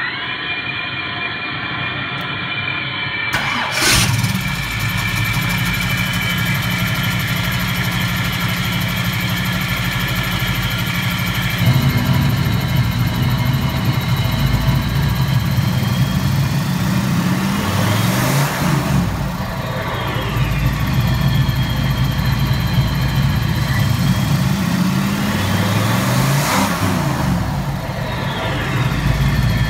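Real Sound electronic turbine system whining steadily, imitating a jet turbine, with the Trans Am's carbureted V8 starting about four seconds in and idling. Twice the throttle is opened, and the turbine whine and the engine rise and fall in pitch together.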